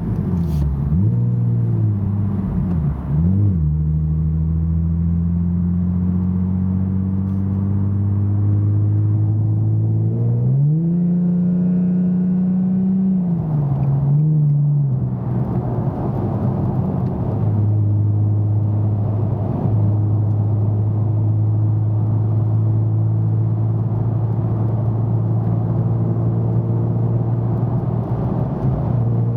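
Nissan 370Z's 3.7-litre V6 through a Fast Intentions aftermarket exhaust with carbon-fibre resonators and non-resonated high-flow cats, heard from inside the cabin with the windows up. The engine note rises and drops several times in the first half as the 7-speed automatic shifts. It then settles into a steady low hum while cruising at highway speed at around 2,000–3,000 rpm.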